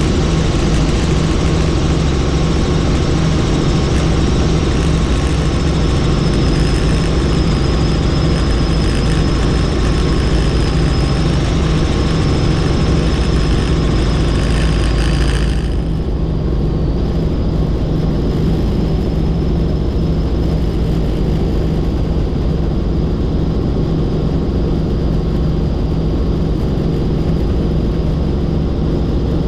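Helicopter in flight, its engine and rotor making a steady loud drone with a thin high whine over it. About halfway through, the upper hiss drops away suddenly while the drone carries on.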